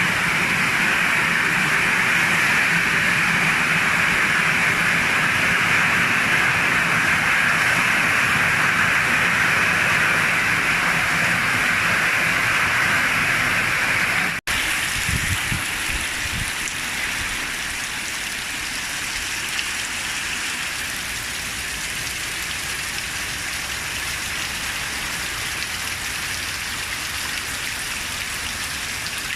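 Heavy rain pouring down in a steady hiss. It breaks off abruptly about halfway through and resumes somewhat quieter.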